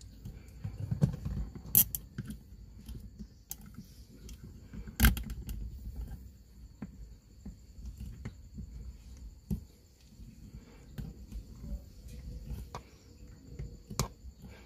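Handling noise of a plastic dash-camera mount being fitted around a rear-view mirror stem: light rubbing and fumbling with scattered clicks and knocks, the sharpest near 2 s and 5 s in and another near the end.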